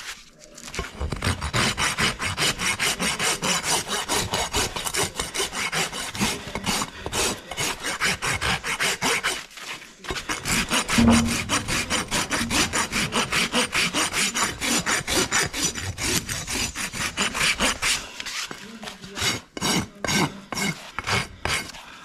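A farrier's flat hoof rasp scraping across the bottom of a horse's trimmed hoof to level it, about four quick, even strokes a second. A short break comes about halfway, and the strokes come slower and further apart near the end.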